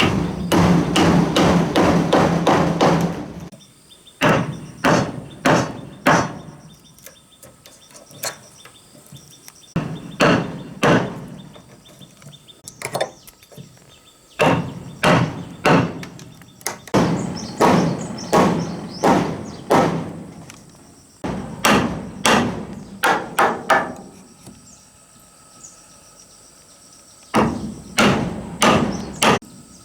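Repeated blows of a tool on wood, coming in runs of quick strikes with short pauses between runs.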